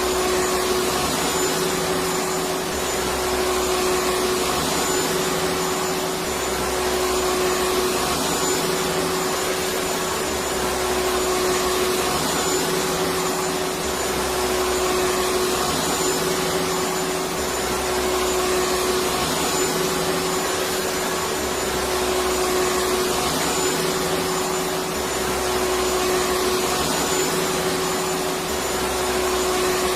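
Electric vacuum cleaner running steadily, its motor giving a constant whooshing noise with a steady hum and a faint high whine. Under it, a low rumble comes and goes every three or four seconds.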